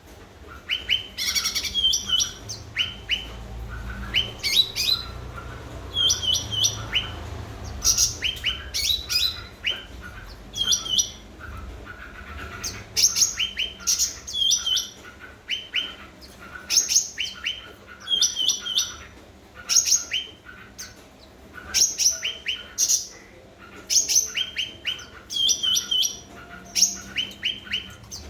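Cucak ranting songbird singing energetically: short phrases of rapid, high chirps, some stepping down in pitch, repeated about once a second without a break.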